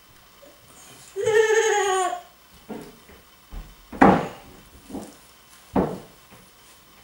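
A one-year-old baby's high, drawn-out vocal sound lasting about a second, falling slightly in pitch, followed by several short smacks, the loudest about halfway through and near the end.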